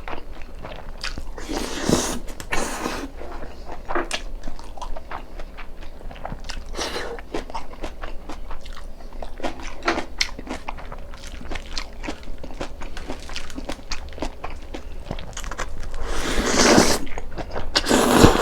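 Close-miked eating of jjamppong noodles and japchae rice: wet chewing with many small mouth clicks, and louder, longer slurps about two seconds in and again near the end.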